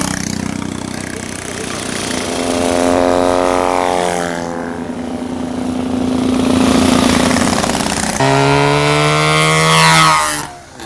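Several vintage racing motorcycles accelerating through a bend, the engine pitch rising as they pull away. A fresh run-up about 8 s in climbs sharply as a bike passes close by near the end.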